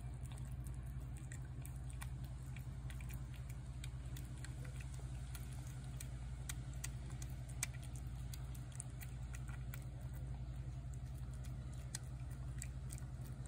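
Tabby cat eating wet pâté cat food from a plate: a run of small, irregular wet clicks and smacks from its chewing and licking, over a steady low hum.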